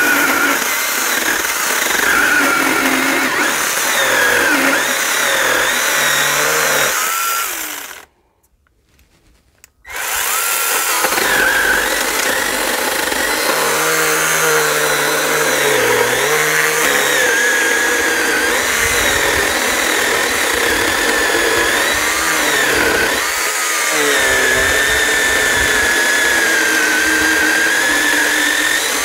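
Worx 5-inch 20V battery-powered mini pruning chainsaw cutting through a log, its motor pitch wavering as the chain bites into the wood. It stops about eight seconds in for a couple of seconds, then starts again and keeps cutting.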